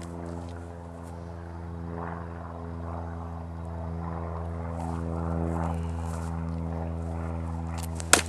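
A steady low engine drone that grows gradually louder, then about eight seconds in one sharp crack as an unsharpened CAS/Hanwei Tinker longsword cuts through a rolled target on a post.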